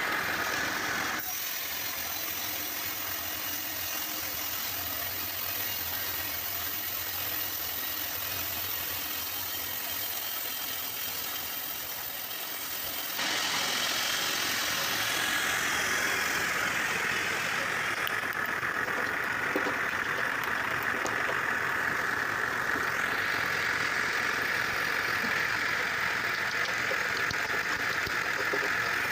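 Sawmill machinery running with a steady engine-like drone. The sound changes abruptly about a second in and again about halfway through, after which it is louder with a stronger high hiss.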